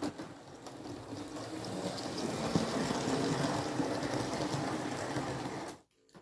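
Electric model steam train with coaches running past on the track: the rumble and clatter of the wheels and the motor. It grows louder as the train nears, then cuts off abruptly shortly before the end.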